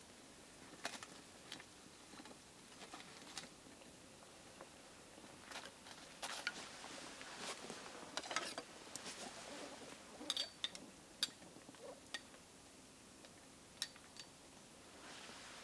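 Scattered light clinks and clicks of small metal cookware being handled at a camp stove, with soft rustling of dry leaves as she moves. A few clearer metallic clinks come about ten to eleven seconds in.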